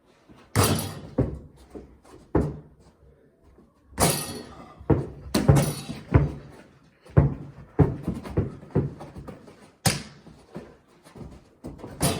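Irregular thuds and slams of a basketball bouncing on the floor and hitting things, about a dozen hits at uneven spacing, echoing in a small room.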